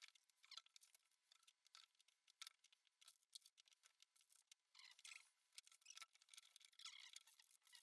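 Near silence, broken by faint scattered taps and rustles as glass jars, bottles and packets are set into a wooden box padded with plane shavings.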